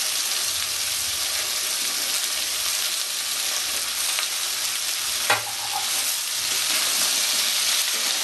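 Mixed vegetables (cauliflower, potato, carrot, green beans) sizzling as they fry in oil in a karai, stirred with a metal spatula. A single sharp knock about five seconds in.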